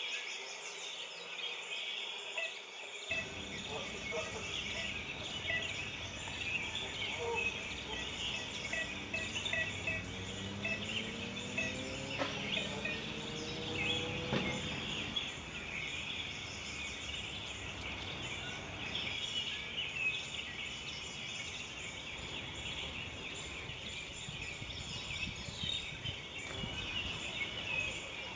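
Outdoor ambience: a dense, steady chorus of high chirping, with a motor rising in pitch about a third of the way in.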